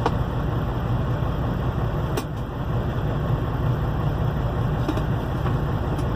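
Steady low rumble with a hiss above it: a truck's engine idling, heard inside the cab.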